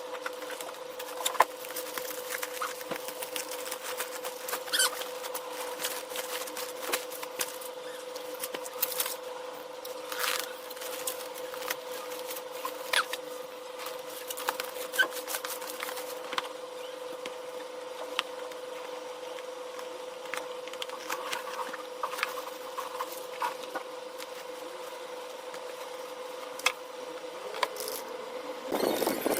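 Typing on an Ajazz AK992 gasket-mount mechanical keyboard with red linear switches: irregular key clicks and clatter, with a steady hum underneath.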